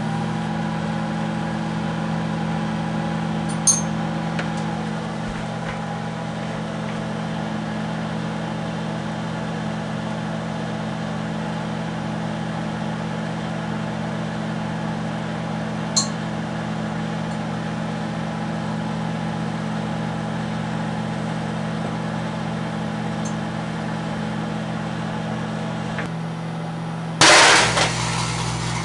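Microwave oven running with a rear-projection CRT tube inside, a steady electrical hum broken by two sharp clicks. Near the end a loud burst of noise lasts about a second and a half.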